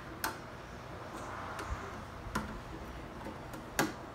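A screwdriver clicking and tapping against the plastic top and fittings of a bug zapper while parts are worked into place: a handful of sharp, irregular clicks, the loudest near the end.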